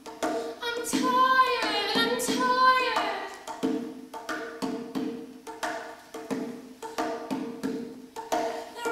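Dance music led by percussion, with a steady beat of about two strokes a second over a held note; voices sing short gliding phrases about one to three seconds in.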